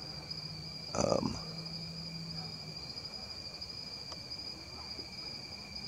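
Steady high-pitched trill of crickets singing at night. A short vocal sound comes about a second in.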